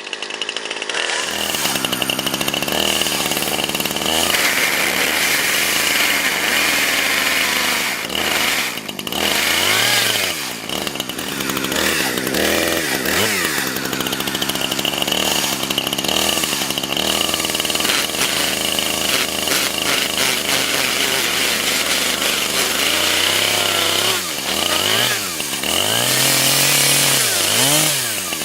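Chainsaw running loudly and cutting into a smartphone clamped in a vise, its engine revving up and down several times.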